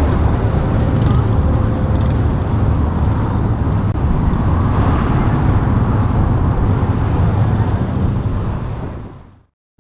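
Steady roar of road traffic on a nearby highway, mostly a heavy low rumble, fading out near the end.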